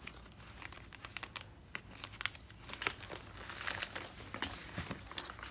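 Thin plastic album sleeve crinkling and rustling in irregular small crackles as hands handle it and slide the album out.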